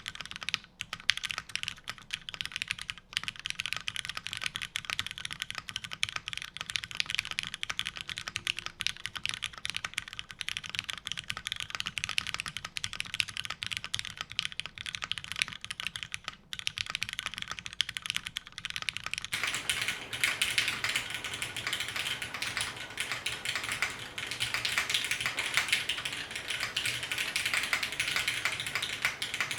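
Fast, continuous typing on a custom mechanical keyboard with an aluminium plate, new-old-stock vintage Cherry MX Black linear switches lubed with Krytox 205g0, and GMK keycaps. It is a steady stream of key clacks and bottom-outs, which grows fuller and a little louder about two-thirds of the way through.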